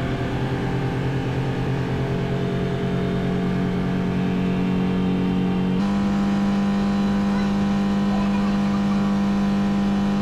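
Outboard motor running with the boat under way: a steady engine drone with a slight pulse. About six seconds in it changes abruptly to a steadier, slightly higher-pitched hum.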